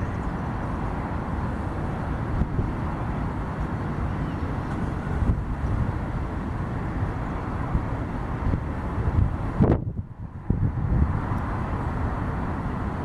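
Wind buffeting the microphone in gusts over a steady low rumble of outdoor airport noise; the sound drops out briefly about ten seconds in.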